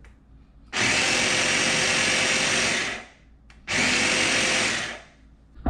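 Electric mini chopper running in two pulses, about two seconds and then just over a second, blending cooked sweet potato with milk.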